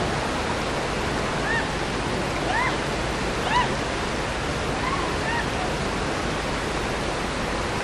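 Creek rapids rushing steadily as white water pours over rocks, with a few short, high rising-and-falling calls over the top.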